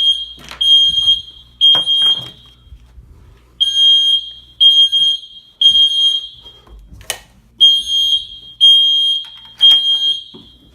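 Dormitory fire alarm sounding a high, steady beep in the temporal-three evacuation pattern: three beeps, a pause, then three more, repeating. A few sharp knocks come in between, the loudest partway through.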